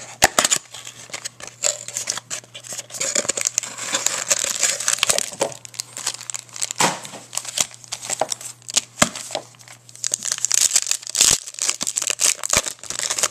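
Clear plastic wrapping on a trading-card mini box being torn open and crumpled by hand: continuous crinkling and crackling with many sharp snaps.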